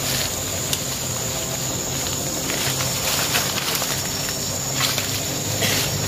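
Leaves and brush rustling in short spells as someone pushes through dense forest undergrowth, over a steady high-pitched insect drone.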